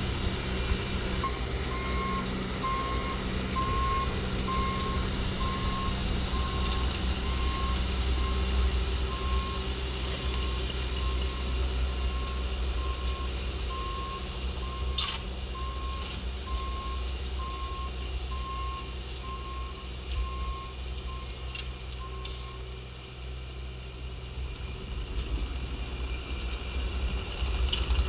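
Bobcat T870 compact track loader's diesel engine running steadily while its backup alarm beeps at an even pace, about three beeps every two seconds, as the machine reverses; the beeping stops near the end. A single sharp clank comes about halfway through.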